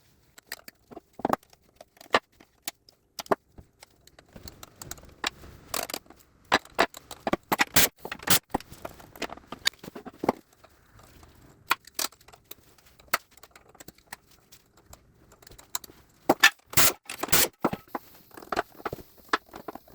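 Irregular metallic clinks, knocks and scrapes of spanners and steel engine parts while the connecting rods of a Gardner 2LW diesel are unbolted and lifted out of the crankcase. The sharpest clanks come in clusters about 7 to 9 seconds in and again about 16 to 18 seconds in.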